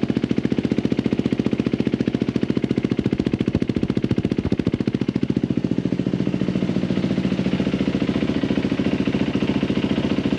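2007 Yamaha WR450F's single-cylinder four-stroke engine idling: a steady, rapid, even run of exhaust pulses.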